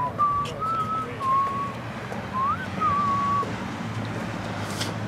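A person whistling a short tune: one clear note in short phrases, gliding up and wavering, which stops about three and a half seconds in. A low steady hum follows.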